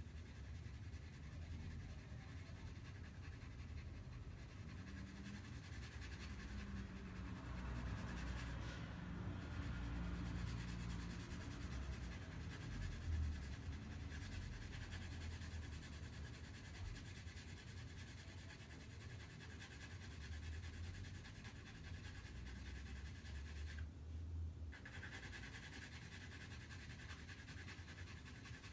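2B graphite pencil shading on drawing paper: faint, repeated scratching strokes back and forth, over a low background rumble.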